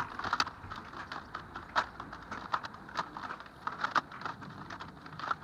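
Oversized 3x3 Rubik's cube being scrambled by hand, its plastic faces turned with a run of irregular clicks and clacks.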